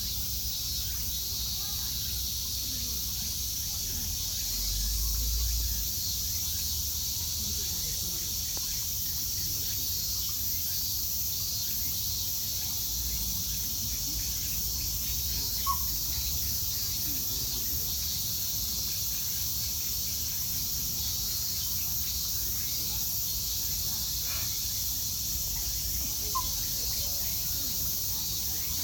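Steady high-pitched summer insect chorus, with two brief sharp chirps, one about halfway through and one near the end.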